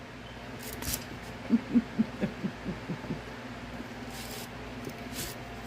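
Eating at the table: a few short wet smacks of chewing, and about a second and a half in, a quick run of low hums or chuckles that fades over about a second and a half.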